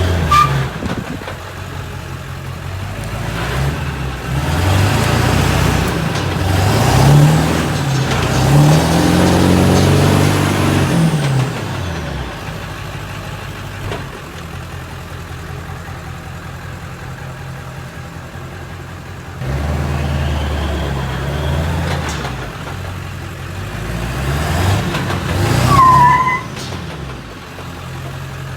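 Ford 7.3 Powerstroke turbo-diesel V8 in a 2000 F350 revved hard and held up in two long bursts, dropping back to a steady run in between. A faint high whistle rises and falls with the first burst, and a short squeal comes near the end of the second.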